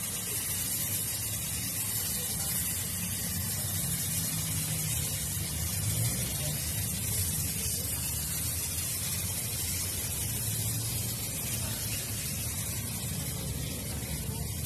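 Air-fed paint spray gun hissing steadily as it sprays primer onto a car's front bumper, with a low rumble underneath.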